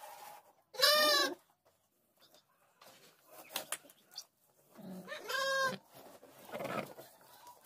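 Sheep bleating: two loud bleats about four seconds apart, the first about a second in, and a fainter, rougher call near the end.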